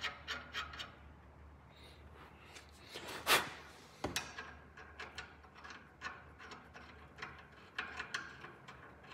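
Small metal clicks and rattles as nuts are threaded by hand onto the studs of an adjustable sway bar end link, with one louder knock about three seconds in.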